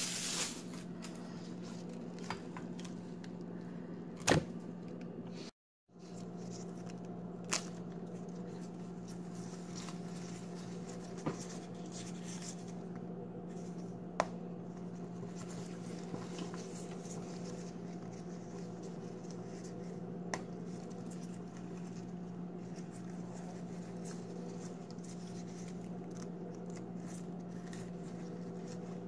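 Rose petals being pulled off the flower heads by hand, soft rustling and tearing with a few sharp clicks, the loudest about four seconds in, over a steady low hum. The sound cuts out briefly about five seconds in.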